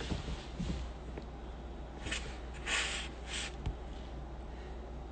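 A person's breath close to the phone's microphone: three short noisy puffs about two to three and a half seconds in, over a low steady hum.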